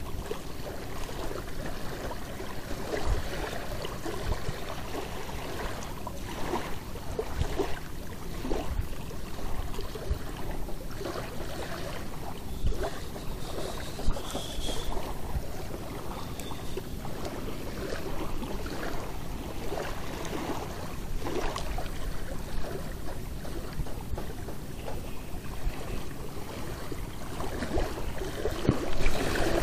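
Small waves lapping and splashing against a rocky lakeshore in a steady, irregular wash.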